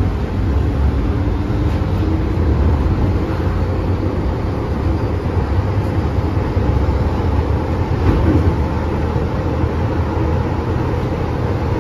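MTR M-train electric multiple unit running at speed, heard from inside the passenger car: a steady rumble of wheels on rail and car-body noise, with no sudden changes.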